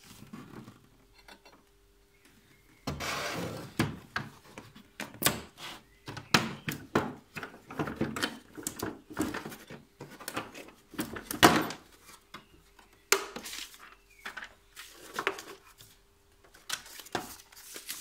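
Hard plastic clicks and knocks from a Bosch L-BOXX 136 tool case being handled, its front latch unclipped and lid opened: a dense run of clatter through the middle, with the loudest knock a little past halfway, then a few scattered clicks.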